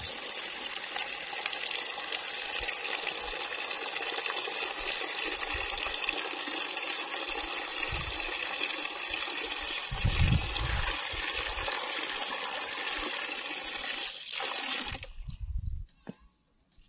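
Water from an outdoor tap pouring in a steady stream into a plastic basin of vegetables being rinsed, with a dull low thump about ten seconds in. The flow cuts off about fifteen seconds in as the tap is turned off.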